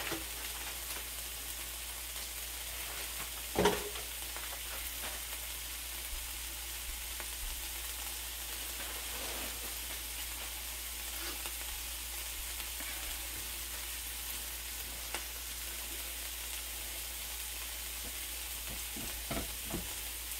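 Onions sizzling steadily in butter in a skillet on the stove, cooking down. A single sharp knock with a short ring comes about four seconds in, and a faint click later.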